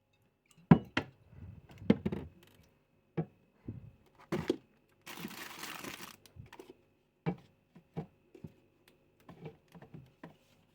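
Food items being handled and moved about in a fridge: a series of irregular knocks and clunks, the loudest near the start, with about a second of plastic-packaging rustle about five seconds in.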